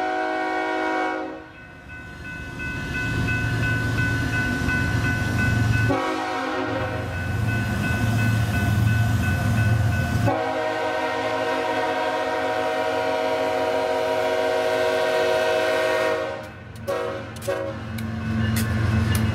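BNSF freight locomotive's air horn blowing for the grade crossing: long blasts, then two short toots about seventeen seconds in. After them the lead locomotives pass close with a loud, steady engine drone and some clicks.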